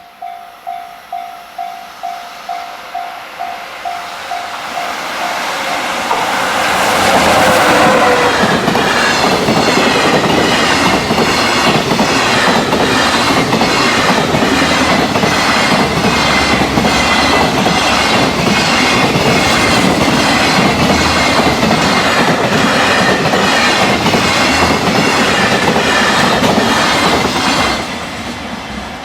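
Level-crossing warning bell beating steadily, then a freight train hauled by an electric locomotive comes through at high speed. The bell is drowned out, and the wagons' wheels clack over the rail joints in a fast, even rhythm for about twenty seconds. The sound drops off suddenly near the end as the last wagon clears.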